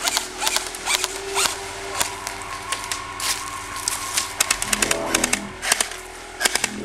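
Airsoft rifles firing: irregular sharp single shots and short rapid bursts of clicks, with a fast burst about two-thirds of the way in and another near the end.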